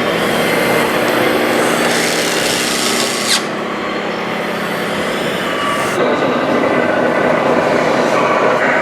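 Radio-controlled model construction machines and trucks working: small electric motors and gearboxes running with a steady grinding, rasping noise, and a sharp click about three and a half seconds in.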